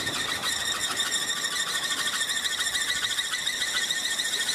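Wooden kolecer wind propeller spinning in the wind, its shaft giving a continuous, very shrill squeal (the 'ngereng') with a fast flutter.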